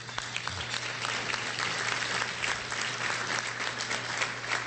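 Audience applauding: a few claps build quickly into steady, dense clapping from a banquet crowd, with a low electrical hum from the sound system underneath.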